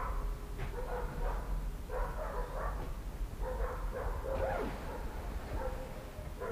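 An animal's voice: repeated short pitched calls over a steady low rumble.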